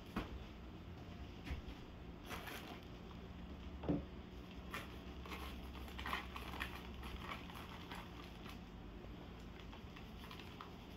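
Paper bag rustling and scattered light knocks and clicks as cornmeal is shaken from a paper bag into a small mesh sieve, with one sharper knock about 4 s in.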